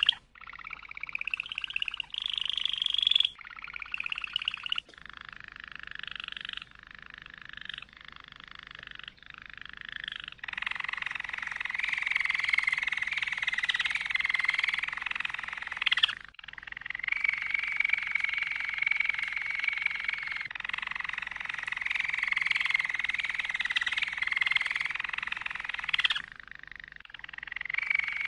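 Domestic canary singing in rapid rolling trills: a run of short phrases at first, then from about ten seconds in long unbroken trills, with a brief break in the middle and a softer passage near the end.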